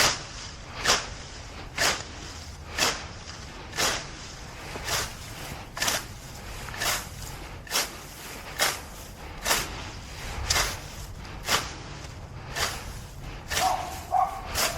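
Grass being plucked by hand, a short tearing swish about once a second in a steady rhythm.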